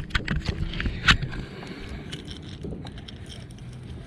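Close handling of a fishing lure and its hooks: a run of clicks and scrapes with one sharp knock about a second in, then quieter rustling.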